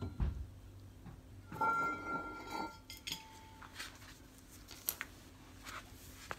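A steel rear brake drum is pulled off the hub and set down: metallic clanks, a short ringing clatter about a second and a half in, then a few light knocks.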